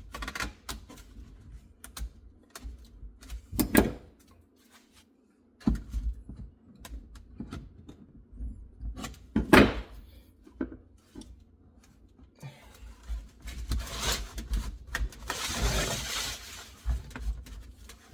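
Sheet-metal flashing being bent and worked by hand around a wooden hive lid: scattered clicks and light knocks, two sharp knocks about 4 and 9.5 seconds in, and a rasping, crinkling stretch of metal being pushed and rubbed near the end.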